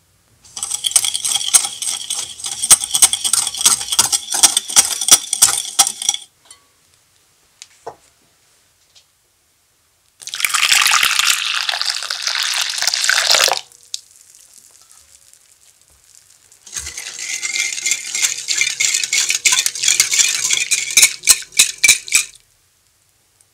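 Rapid clinking and ringing against a glass mixing bowl for about six seconds. Then boiling water is poured into the bowl for about three seconds. Then a wire whisk beats the butterfly pea liquid against the glass for about five seconds, with the same quick ringing clinks, until the sugar and gelatine dissolve.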